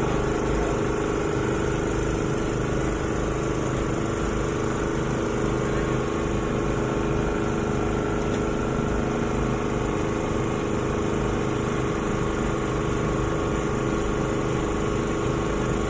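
A small engine running steadily with an even hum that does not change.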